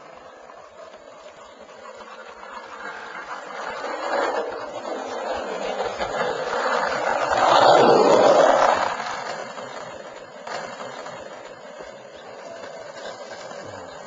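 Skateboard wheels rolling on asphalt, growing louder as the board passes close about eight seconds in, then fading as it rolls away.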